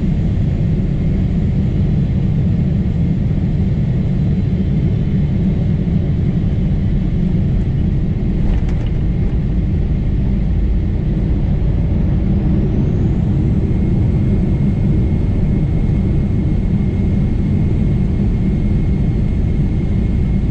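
Loud, steady low rumble of a Boeing 777-300ER heard from inside the passenger cabin: engine and airflow noise from its GE90 engines. A faint steady high tone runs over it.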